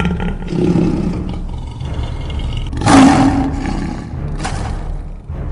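A lion's roar sound effect, loudest about three seconds in, over a steady low rumble.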